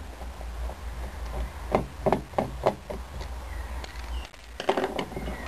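Screwdriver and small screws clicking and tapping against a plastic receiver case and hard tile as the case screws are taken out. A cluster of sharp clicks comes about two seconds in, and another near the end.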